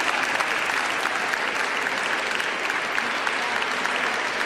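Audience applauding steadily, with many hands clapping together.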